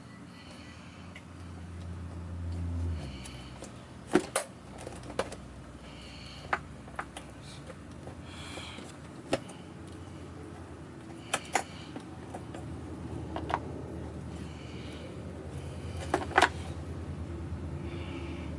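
Scattered sharp clicks and knocks of vacuum cleaner parts being handled, over a low hum that swells briefly about two seconds in.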